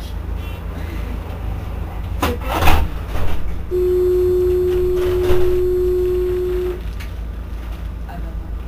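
Alstom Citadis 302 tram with a steady low hum from its onboard equipment, a short clatter about two seconds in, then a single steady warning beep held for about three seconds, typical of the door-closing signal.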